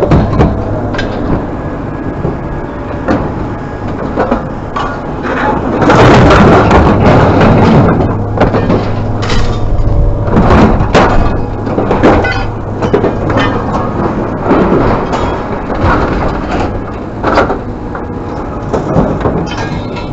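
Repeated clanks and knocks of scrap being handled and loaded, with a heavy rattling stretch about six seconds in, over a steady low engine hum.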